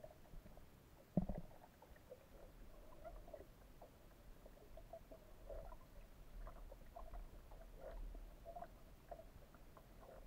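Faint muffled underwater sound picked up by a submerged camera: scattered small clicks and crackles over a low rumble, with one sharper knock about a second in.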